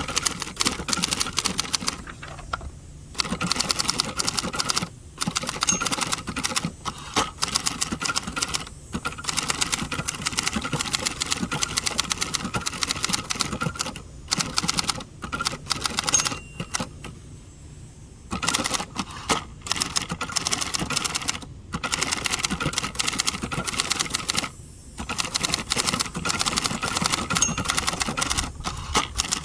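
1967 second-generation Hermes 3000 manual typewriter being typed on: quick runs of sharp keystroke clacks, broken by a few short pauses, the longest about two seconds just past the middle.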